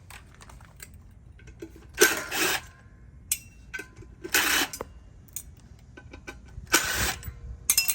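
Impact driver run in three short bursts, backing screws out of a ceiling fan, with small metal clinks and ringing between the bursts.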